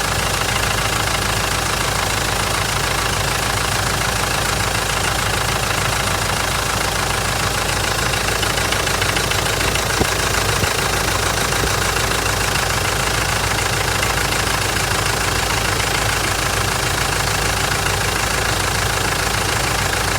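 Mitsubishi 4M41 four-cylinder turbodiesel idling steadily after a cold start, with a persistent knock of unknown cause. One brief click sounds about halfway through.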